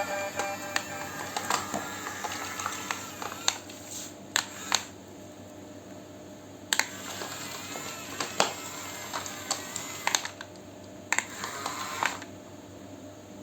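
Small electric motors of a toy RC excavator whirring faintly, with a wavering whine, over a low hum. Irregular sharp plastic clicks and clacks run throughout, and the whine stops about twelve seconds in.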